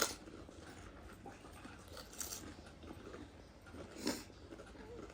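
Golgappe (crisp hollow puri shells) being bitten and chewed, with a few short crunches.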